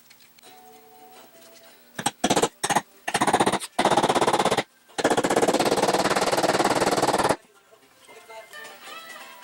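Ball-peen hammer striking a cast-aluminium bracket of an Atlas benchtop mill: a few single sharp blows, then long runs of rapid, loud blows with short pauses between them. Faint background music lies under it.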